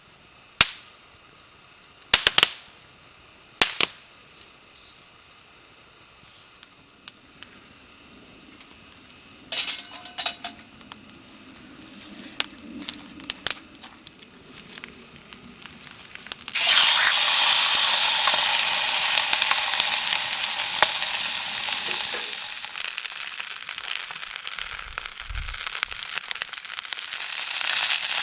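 A few sharp clicks and knocks, then, a little past halfway, sudden loud sizzling of food in a hot frying pan over a campfire, which eases off and swells again near the end.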